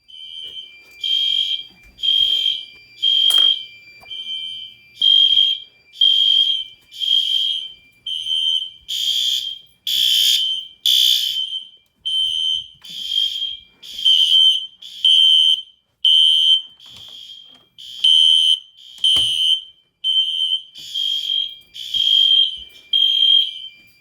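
Fire alarm horns, including a System Sensor SpectrAlert Classic horn strobe, sounding in general alarm: a high horn tone pulsing on and off about once a second. A couple of sharp clicks sound about 3 and 19 seconds in.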